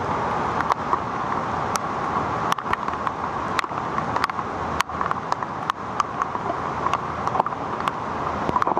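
Steady rain and floodwater running across a road, with frequent sharp taps throughout.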